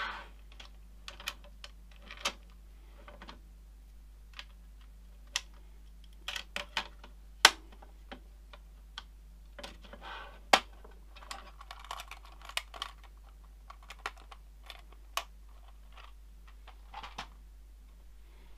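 Objects being handled on a workbench: a clear plastic case and small parts moved and set down, giving irregular clicks, taps and rustles, with two sharper knocks about halfway through.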